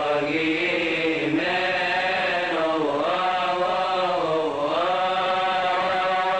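Coptic liturgical chant: one continuous vocal line of long, drawn-out notes that slide slowly up and down, sung without pause.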